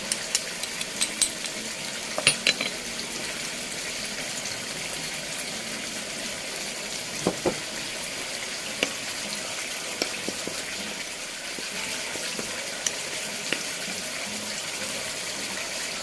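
A metal spoon clinking against a small ceramic bowl as ground coriander, cumin and turmeric are mixed with water into a spice paste, the clinks coming in clusters near the start and around two and seven seconds in, then singly. Under them runs a steady sizzling hiss from blended chilli, onion and ginger frying in oil.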